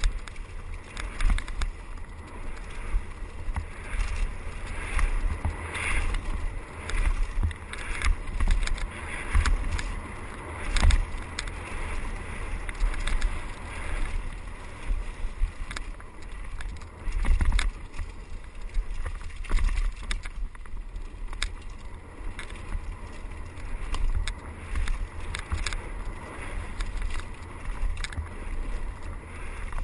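Wind buffeting a helmet camera's microphone at speed on a mountain bike descending a rough dirt trail: a steady low rumble with frequent knocks and rattles from the bike jolting over bumps, the loudest jolts about 11 and 17 seconds in.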